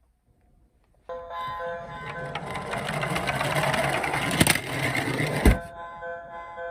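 Toy emergency-vehicle minicar's electronic siren playing through its small speaker as a set of steady tones, over a mechanical whirr of the toy running. A sharp click comes about five and a half seconds in, and after it the siren plays on alone.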